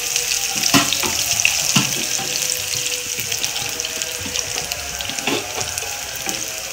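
Sliced onions sizzling in hot oil in a frying pan, stirred with a wooden spoon. The spoon scrapes against the pan a few times.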